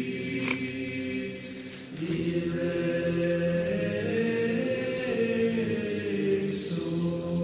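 Background music of voices singing a slow chant in long held notes, moving to a new chord about two seconds in.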